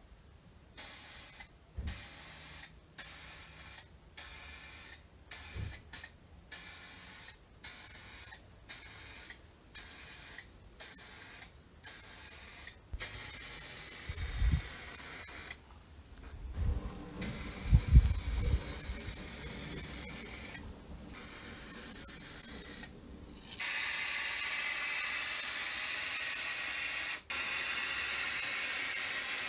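Spray hissing in about a dozen short bursts, then longer sprays, with a few low knocks of handling in the middle. Near the end comes one loud, continuous spray.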